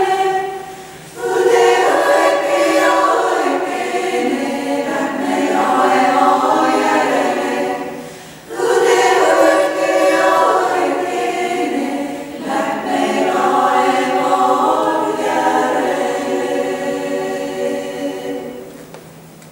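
Women's choir singing in several parts, in phrases broken by short pauses for breath, the final phrase fading away near the end.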